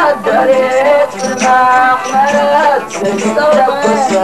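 A man singing a wavering, ornamented melody in Moroccan Amazigh rways style, over string and percussion accompaniment.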